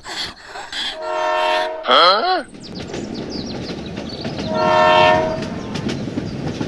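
Two steady horn-like honks, each about a second long, over a steady rumbling noise, with a short tone that slides up and back down between them.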